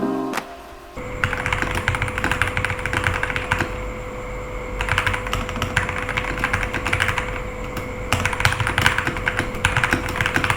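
Rapid typing on a DareU K98 keyboard, keys clacking in quick runs with short pauses between them, over a faint steady hum. A short music cue ends about half a second in.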